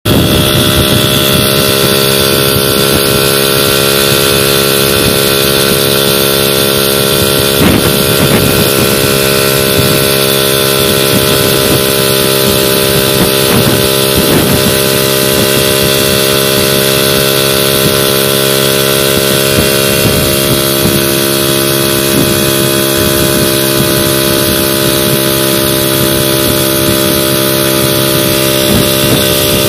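VéloSoleX moped's small single-cylinder two-stroke engine running at a steady cruising speed, an even buzz that holds one pitch.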